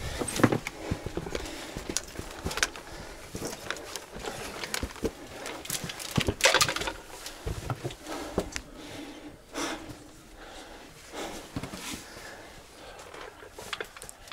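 A hiker's boots knocking and scraping irregularly on rock while scrambling, with heavy breathing close to a body-worn microphone.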